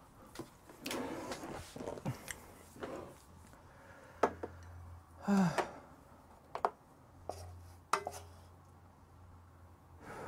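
Wooden spoon scraping and knocking against a nonstick frying pan as food is stirred and scooped: a stretch of scraping about a second in, then several sharp knocks a second or two apart, with a brief falling tone about halfway through.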